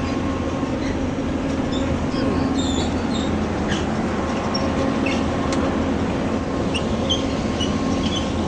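Heavy machinery engine running steadily, a constant mechanical drone with a steady hum, plus short high chirps here and there.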